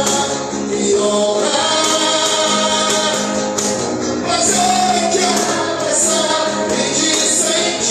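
Live gospel worship band playing a slow song, with voices singing along.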